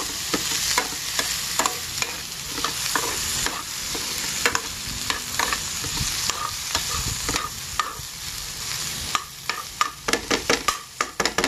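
Metal spatula stirring and scraping chopped vegetables and soaked moong dal around a metal kadai, over a steady sizzle of frying. A run of sharper clanks and scrapes comes near the end.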